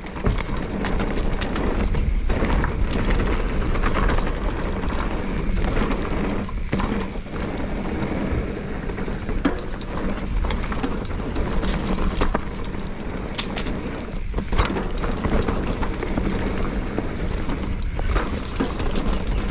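Mountain bike rolling fast down a dirt singletrack: steady tyre noise on dirt and gravel, with the bike rattling and knocking over bumps.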